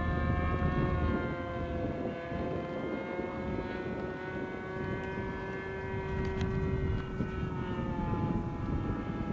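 Model airplane's engine running steadily in flight, a buzzing drone whose pitch dips slightly and recovers as the plane passes.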